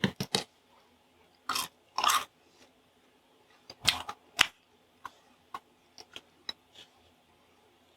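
A person tasting food dressed with hot sauce, biting and chewing close to the microphone: several loud mouth sounds in the first half, then fainter, sparser chewing ticks.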